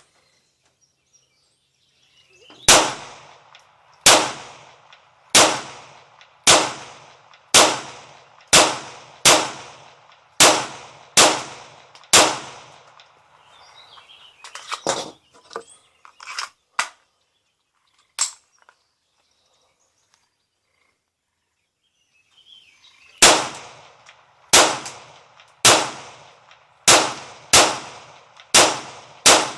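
A firearm fired shot after shot, about one a second, each crack with a short ringing tail: ten shots, then a pause of about ten seconds with a few lighter metallic clicks, then seven more shots.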